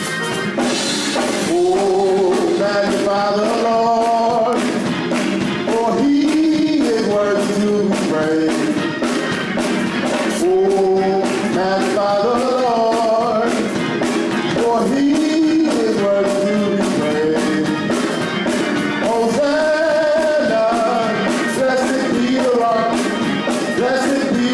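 Upbeat music with a singing voice over a steady drum beat.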